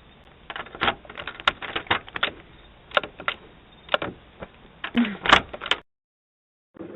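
A string of irregular sharp clicks and knocks, a dozen or more, which stops suddenly about six seconds in.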